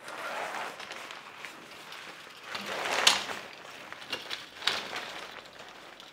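Fabric rustling and rods clicking as a Godox lantern softbox's collapsible rod frame is lifted inside its white diffuser cover, with one sharp click about three seconds in and a few lighter clicks after.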